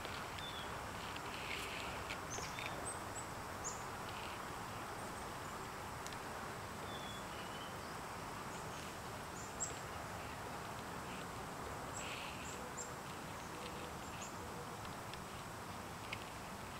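Outdoor ambience: a steady background hiss with short, high bird chirps scattered through it and a few faint clicks, one a little sharper near the middle.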